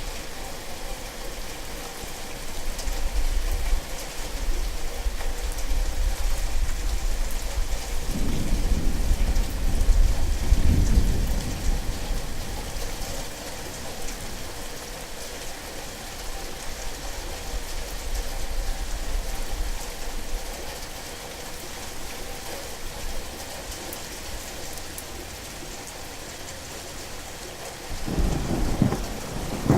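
Steady heavy rain with rolling thunder: a long low rumble builds over the first several seconds, peaks about ten seconds in and dies away, and a second rumble starts near the end.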